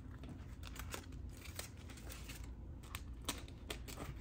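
Paper handling: light rustling with scattered crisp ticks as cash bills and paper budget envelopes are handled.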